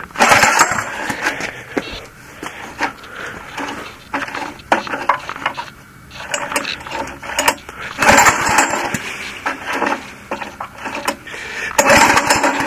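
Recoil starter on a Honda EG1400X generator pulled three times: right at the start, about 8 s in, and near the end. The rope whirs and the engine cranks over each time without catching, so the cold engine is not firing on the pulls.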